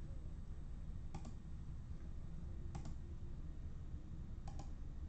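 Computer mouse clicking three times, each click a quick pair, over a low steady hum.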